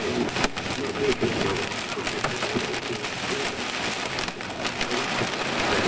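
Hail mixed with heavy rain pelting the car's roof and windshield, heard from inside the car: a dense, steady clatter of many small hits. Some of the stones may be golf-ball size.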